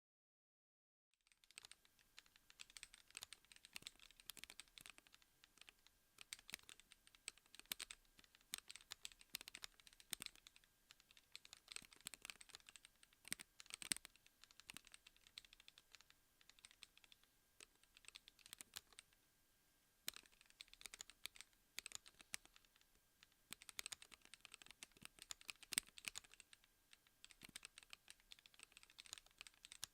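Faint, steady typing on a Gravity 36 keyboard: a fast, irregular patter of key presses that starts about a second in, with a short pause about two-thirds of the way through.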